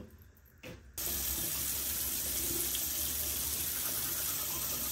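Water running steadily from a sink tap, starting suddenly about a second in.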